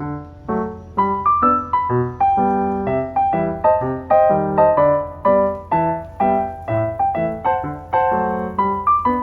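Background piano music: a melody of quick notes over chords at a steady tempo.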